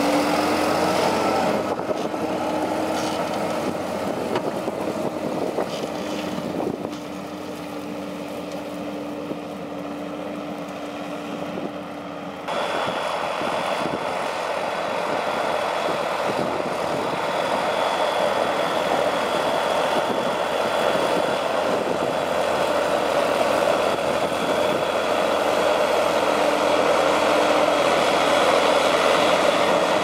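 Fendt 936 Vario tractor's six-cylinder diesel engine running steadily under load while pulling an eight-furrow reversible plough through the soil. About twelve seconds in the sound changes abruptly from a closer, lower hum to a fuller, even drone with a thin high steady tone, which slowly grows louder toward the end.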